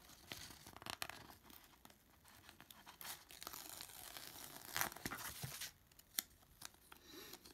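A paper sticker being peeled off its backing sheet by hand: a soft tearing rustle with small crinkles of the sheet, strongest a few seconds in.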